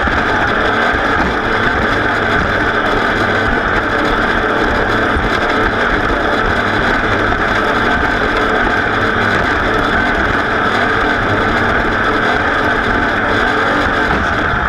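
Racing engine running hard at fairly steady high revs, with wind buffeting the microphone.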